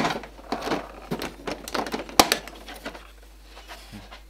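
Plastic clicks and knocks from hands handling a 1:6 scale radio-controlled Mini Cooper model as its rear hatch is lifted open, with one sharp click about two seconds in.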